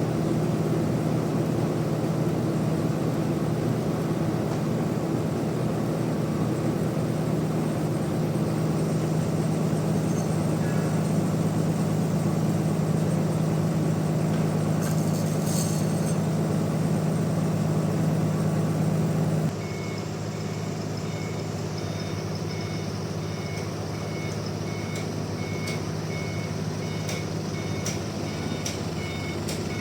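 Sawmill machinery running with a steady low hum that cuts down abruptly about two-thirds of the way through. Then an electronic warning beeper sounds over and over, about one beep a second, like a reversing alarm.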